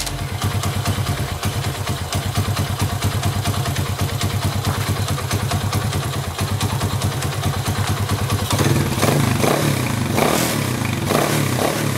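Alfa moped's single-cylinder four-stroke engine running with a fitted new NGK spark plug, ticking over with rapid, even firing pulses. In the last few seconds it is revved briefly a few times.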